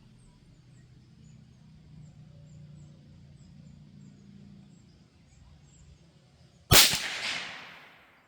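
A single shot from a Marlin 782 bolt-action .22 Magnum rifle firing a CCI Maxi-Mag round. It is a sharp crack nearly seven seconds in that rings out and fades over about a second and a half.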